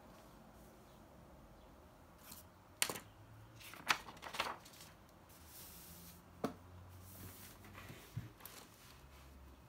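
A paper notebook page being turned over: crisp paper crackles and snaps, loudest about three and four seconds in, then softer rustling and a couple of light taps.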